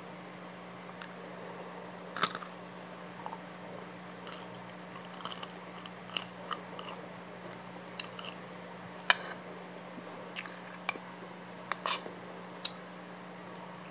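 Close-miked chewing of fried rice with chicharon bituka (crispy fried pork intestine), with about a dozen sharp, irregular crunches as the crispy bits are bitten through.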